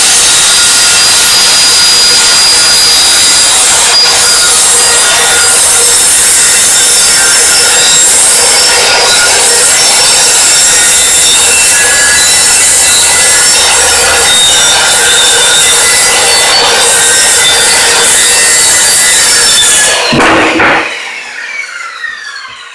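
Craftsman table saw running and cutting through a 2x4, very loud and steady. About twenty seconds in, the saw is switched off and its blade winds down with a falling whine.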